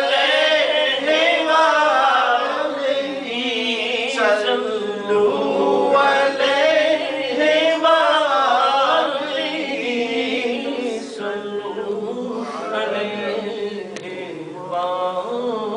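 A man chanting a naat, an Urdu devotional poem in praise of the Prophet, unaccompanied into a microphone, with long held, wavering notes. The singing grows a little softer in the last few seconds.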